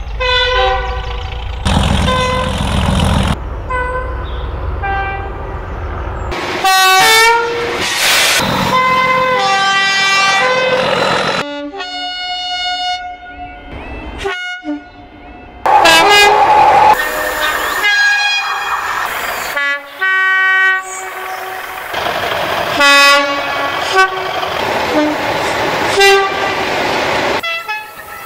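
A succession of British diesel locomotive horns, several different locomotives each giving short and longer blasts that step between high and low notes. Diesel engine noise from the passing locomotives runs under and between the blasts.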